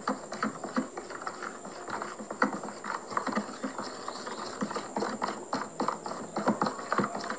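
A stirring utensil clicking and scraping against a plastic tub as a thick slime mixture of glue, detergent and baking soda is stirred: quick, irregular knocks.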